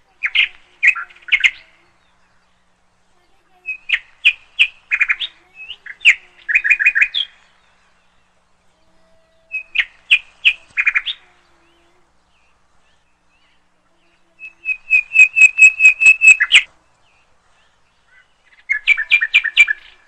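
A bird chirping in short phrases of quick repeated notes, about six phrases with pauses of one to three seconds between them. One phrase near the end of the third quarter is a faster, even run of about a dozen notes.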